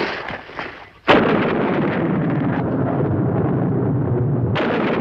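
A sudden thunderclap about a second in, then a steady heavy rumble of thunder, with a second crack near the end.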